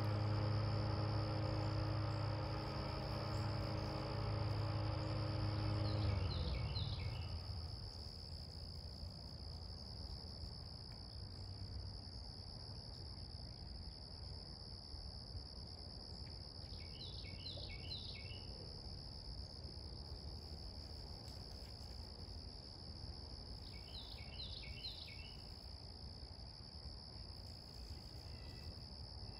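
Insects in the woods keep up a steady high-pitched drone. A louder low hum made of several steady tones fades out about six seconds in. Three times a short run of quick high chirps sounds over the drone.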